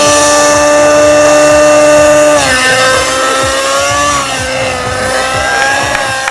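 Align T-Rex 600N nitro RC helicopter's glow engine and rotors running at a high, steady pitch. The note drops suddenly a little over two seconds in, then wavers up and down as the helicopter flies off.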